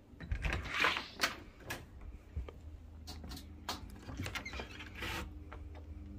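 Handling of a back door as it is unlatched, opened and stepped through: scattered light clicks and knocks, with a short rustle about a second in, over a low steady hum.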